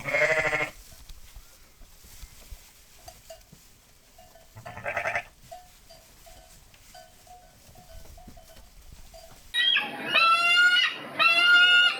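Two short bleats from a farm animal, about five seconds apart, with faint short notes in between. Near the end a louder run of repeated calls from another animal starts.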